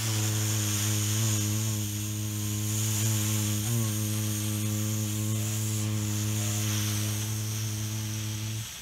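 A man humming one long, steady low drone with his mouth closed, mimicking the hum of an electric fan; the pitch wavers slightly a few times and the hum stops abruptly near the end.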